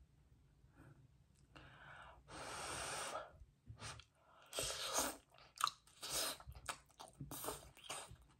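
Close-miked eating sounds of cheesy baked spaghetti squash: a long breathy sound a little over two seconds in, then wet chewing with quick mouth clicks and slurps of the strands.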